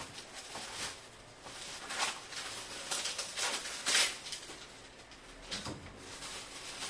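Irregular rustles and light knocks of packaging being handled, the loudest about four seconds in.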